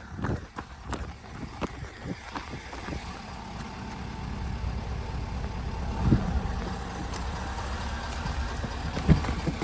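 A vehicle engine running, a steady low hum that grows louder a few seconds in, with a few separate thumps.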